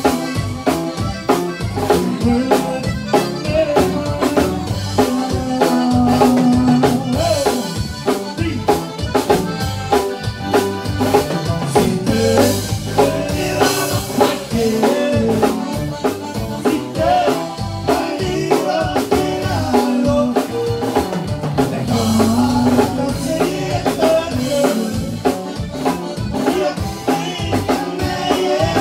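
Conjunto band playing live: button accordion and bajo sexto melody over a drum kit keeping a steady beat.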